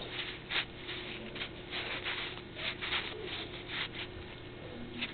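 Short, irregular scratchy rustles of fingers handling fishing line and a hook while tying a knot close to the microphone, over a faint steady hum.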